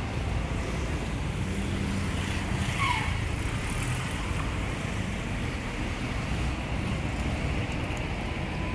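Busy street traffic: cars and a motorcycle running past on the road, a steady rumble. A brief high squeak about three seconds in.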